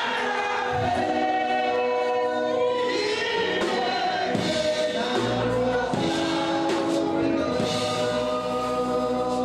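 Gospel music: a choir singing long held notes.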